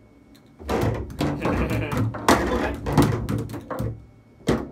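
Foosball table in play: the ball knocked about by the rod figures, with a quick run of sharp clacks and knocks of ball, figures and rods against the table, the loudest about two and a half and three seconds in.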